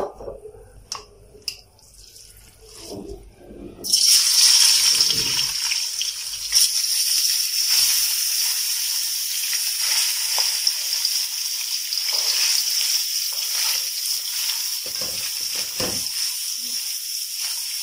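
Minced meat sizzling loudly in hot oil in a metal karahi. The sizzle starts suddenly about four seconds in, as the mince goes into the pan, and then holds steady while a spatula stirs it.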